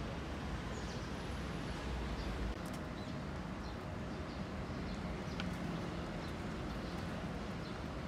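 Outdoor city ambience: a steady hum of distant traffic with faint, scattered chirps of small birds. The low rumble drops about two and a half seconds in.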